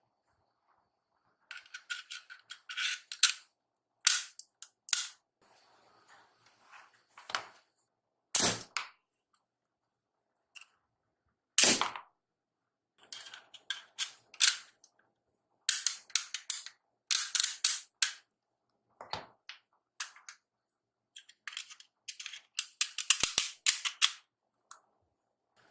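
Toy guns firing: bursts of rapid clicking shots and several louder single bangs.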